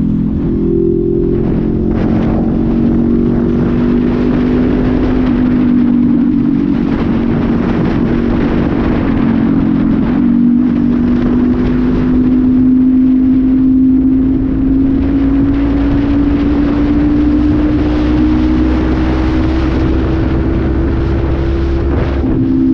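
Honda CB500F's parallel-twin engine through an aftermarket sport exhaust, running at road speed with wind noise over it. The engine note dips briefly about ten seconds in, then rises slowly as the bike accelerates.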